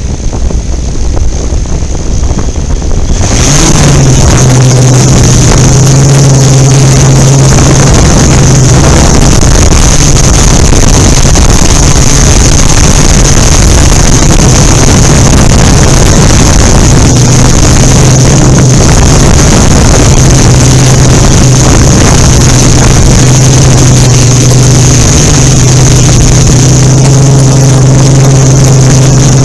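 Yuneec Typhoon Q500 4K quadcopter's electric motors and unbalanced carbon-fibre propellers running, a loud steady buzzing hum with a high whine over it and wind noise on the microphone. About three seconds in it grows sharply louder and then holds, wavering slightly in pitch.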